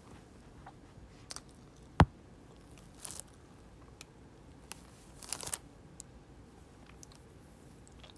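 Brief crinkling rustles of a plastic bag while eating, with one sharp click about two seconds in, the loudest sound.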